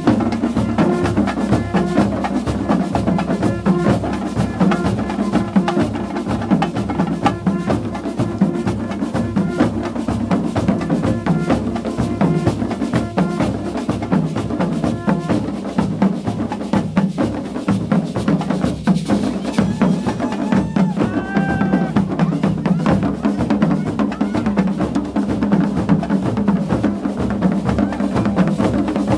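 A carnival street group's drum section playing live: many skin-headed drums beaten with sticks in a steady, driving rhythm.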